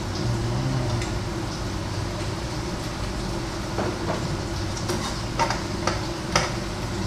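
Food being tipped from a bowl into a frying pan, then a spatula stirring in the pan and knocking against it, with a few sharp clacks in the second half, over a steady low hum.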